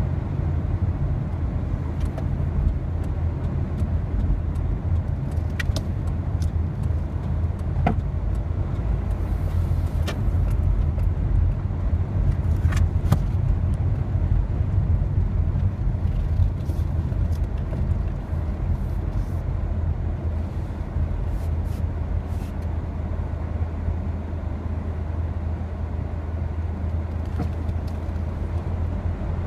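Car cabin noise while driving slowly: a steady low engine and road rumble, with a few short clicks or rattles now and then.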